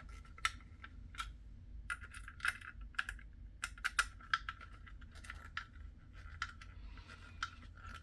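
Small screwdriver driving screws into a model car kit's chassis: irregular light clicks and ticks of the tool and the parts being handled.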